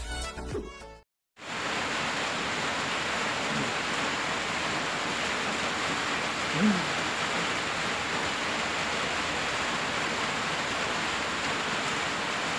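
Intro music ends about a second in. After a short break, a steady even hiss fills the rest, with one short pitched sound about halfway through.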